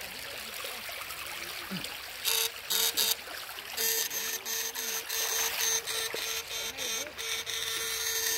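Battery-powered electrofishing shock rod buzzing in repeated on-off bursts from about two seconds in, a steady electric hum with a high hiss, over a trickling stream.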